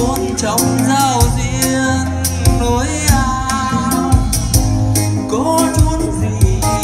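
A man singing a song into a microphone, accompanied by an electronic keyboard playing a steady bass line with a drum beat.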